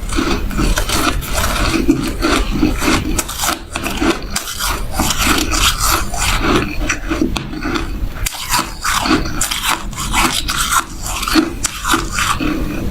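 Shaved ice being bitten and chewed close to the microphone: a fast, continuous run of frosty crunches.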